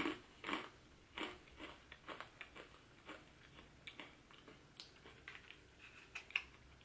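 A person chewing a small crunchy baked bread stick with her mouth close to the microphone: a string of irregular crunches, loudest in the first second or so, then growing fainter and sparser.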